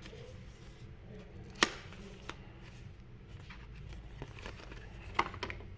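Handling noises from unboxing a phone: a sharp click about one and a half seconds in, with smaller taps and rustling of packaging, and another pair of clicks near the end, over a low steady hum.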